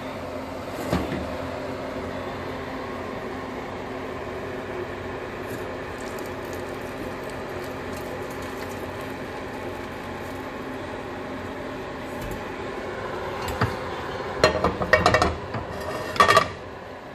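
Boiled-down maple sap being poured from a pan through a felt filter cone, a steady pour over a constant low hum. Near the end a metal pan clanks several times against the stove.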